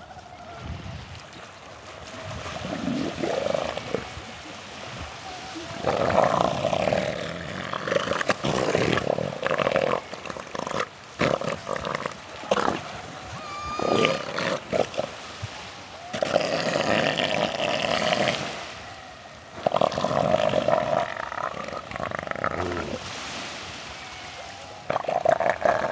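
Bull elephant seals roaring in repeated bouts of about two seconds each as they fight in the shallows.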